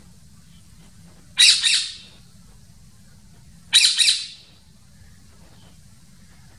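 A parrot calling twice: two loud calls about two seconds apart, each under a second long.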